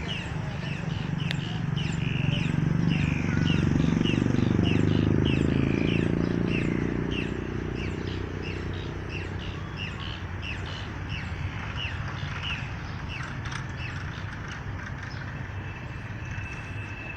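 A bird chirping over and over, short high calls about two a second. Under it a passing motor vehicle's engine grows louder over the first few seconds, then fades away.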